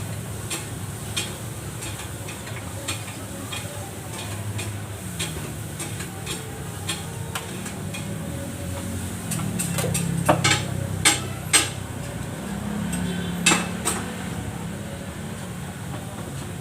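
Metal utensils clicking and clattering against pots or a grill, with several sharper, louder knocks in the second half, over a steady low hum.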